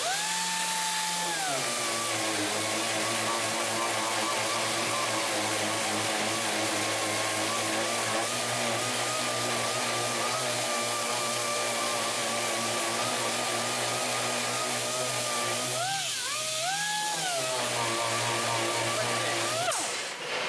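Power sander with on-tool dust extraction running steadily on wood for about twenty seconds. Its pitch drops about a second and a half in as it is put under load, rises briefly near the end as the load comes off, settles lower again, then stops just before the end.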